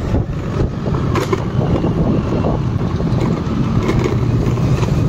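Steady low engine hum and road noise of slow-moving cars in traffic, with a few light clicks.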